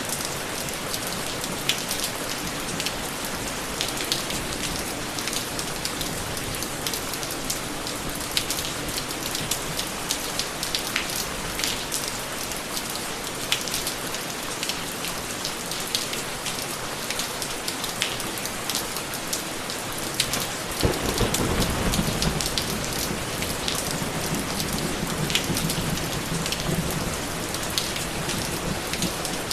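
Steady rain falling on a surface, with many sharp drop ticks. About two-thirds of the way through, a low rumble of thunder comes in and fades over several seconds.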